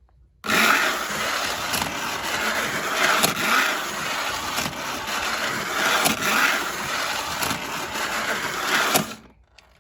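Lionel No. 50 section gang car running on O-gauge track under 6-volt battery power: its small electric motor whirs and its wheels clatter, with occasional clicks. It starts suddenly about half a second in and cuts off about nine seconds in as the power is connected and then broken.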